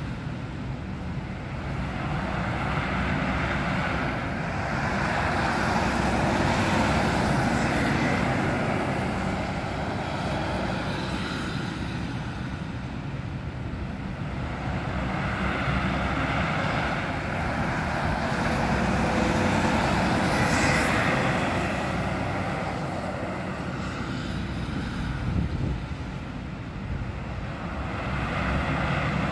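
Articulated city bus engine running amid street traffic noise, a steady rumble that swells and fades in long waves. It grows louder near the end as the bus drives toward the microphone.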